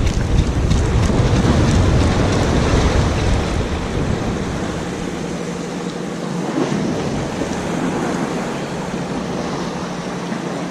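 Wind buffeting the microphone over the steady wash of the sea against the breakwater; the low wind rumble drops away about five seconds in, leaving the water's hiss.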